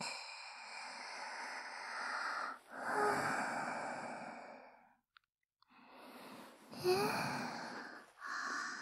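A woman's slow, deep breaths recorded close up on a binaural dummy-head microphone: about four long breaths in a row, with a faint voiced sigh in two of them.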